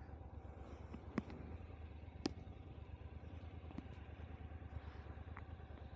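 Motorcycle engine idling faintly and steadily, with two sharp clicks about one and two seconds in.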